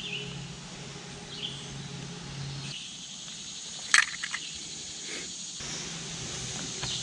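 Quiet woodland ambience with insects chirping steadily, and one short sharp sound about four seconds in.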